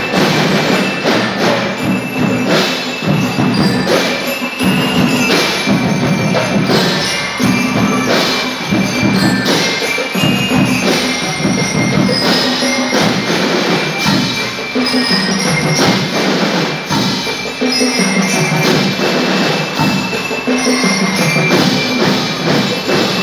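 Drum and lyre band playing: metal bell lyres ringing out a tune over the steady beat of marching drums.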